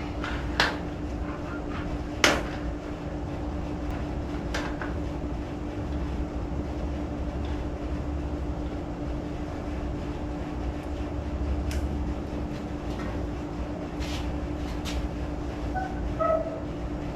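Workshop handling noises: scattered sharp knocks and clicks of tools and parts being picked up and set down, the loudest about two seconds in, over a steady low hum from the shop.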